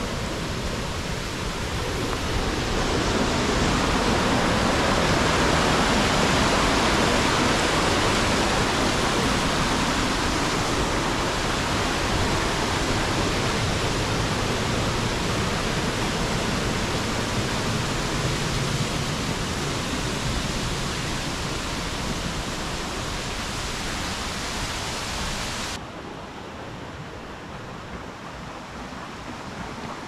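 Steady rush of a rocky jungle stream flowing over stones in small rapids. It drops suddenly to a quieter rush near the end.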